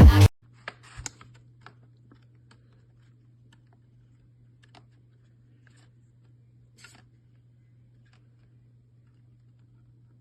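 Electronic dance music cuts off abruptly, leaving a steady low hum with faint, scattered clicks and taps, a few of them a little sharper about a second in and near seven seconds.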